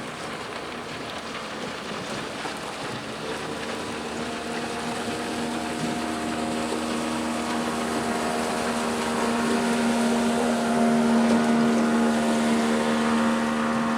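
A motorboat passing close by, its engine hum steady in pitch and growing louder as it approaches, loudest a few seconds before the end.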